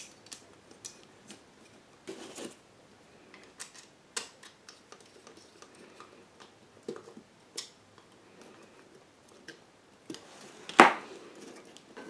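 Small scattered clicks and scrapes of a link wire being fitted to a one-way light switch's terminal and screwed down with a screwdriver, with one louder click near the end.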